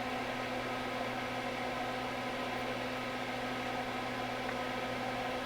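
Steady electrical hum with a fan-like hiss from running bench equipment, even and unchanging throughout.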